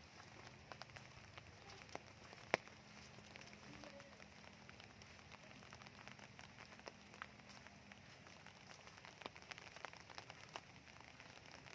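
Soft rain: a faint steady patter with scattered individual drops ticking, one sharper drop about two and a half seconds in.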